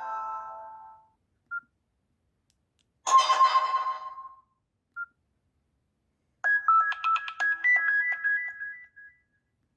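Nokia C5-00 ringtones playing one after another: a tone fading out, a short beep, a bright chime about three seconds in that rings away, another short beep, then a short melody of quick high notes from about six and a half seconds to nine seconds.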